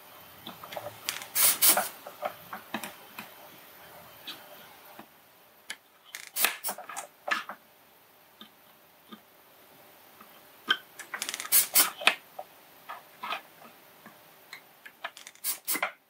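Light clicks and taps from hand soldering work: a soldering iron and a small circuit board being handled on a desk. They come in a few short clusters, about a second and a half in, around six to seven seconds, and again around eleven to twelve seconds.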